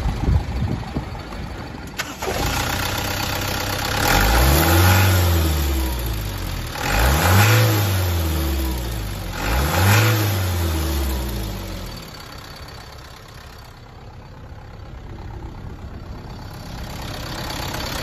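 Mitsubishi Canter's 4D33 four-cylinder diesel engine running, revved up and let fall back three times, about four, seven and nine and a half seconds in. After that it settles to a quieter idle.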